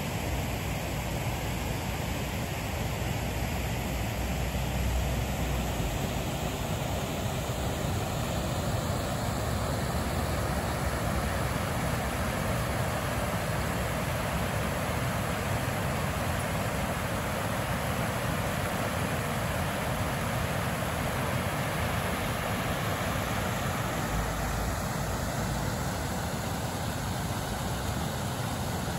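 Steady rush of river water spilling over a low concrete weir, mixed with road traffic from the road along the bank; a low rumble swells about five seconds in and again near the end.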